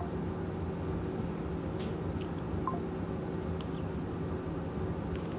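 Steady background hum and hiss of room noise, with a faint short blip at the start and another about two and a half seconds in.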